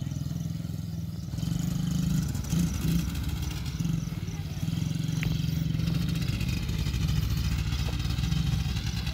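ATV engine running steadily at low throttle, with a fine rapid pulse and a small swell in the engine note about two to three seconds in.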